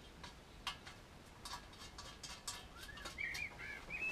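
Small metallic clicks and taps of brass nuts being handled and fitted onto an outboard's fuel tank. Near the end a bird chirps a quick run of short rising-and-falling notes.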